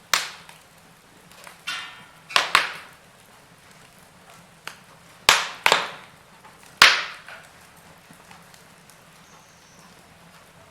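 Wood fire crackling: sharp, sparse pops and snaps from burning logs, about seven loud cracks with several coming in quick pairs, over a faint low background.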